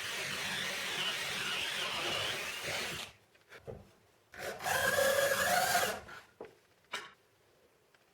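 Power drill boring into wood in two runs, the first about three seconds long and the second about a second and a half, followed by a few light knocks. It is drilling the holes for the threaded stems of adjustable cabinet legs.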